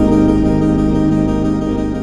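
Outro music: sustained organ-like keyboard chords.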